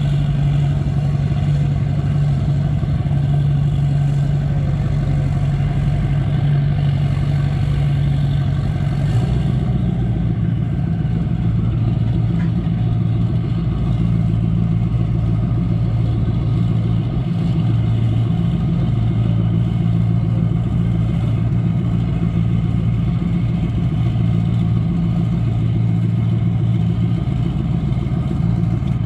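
Powerboat engines idling loudly and steadily as the boat is powered onto its trailer, the engine note shifting about ten seconds in.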